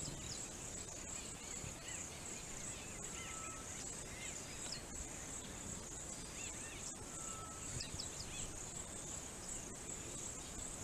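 Steady high-pitched chorus of insects such as crickets, with occasional short chirps and a few brief whistled notes.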